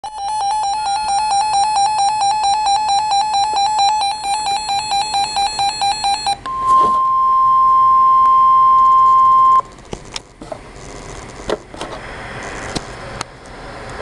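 Weather alert radio sounding a severe thunderstorm warning: a rapid, pulsing electronic beep for about six seconds, then a steady single-pitch alert tone near 1 kHz, the 1050 Hz NOAA Weather Radio warning alarm tone, for about three seconds that cuts off suddenly. A few faint clicks follow.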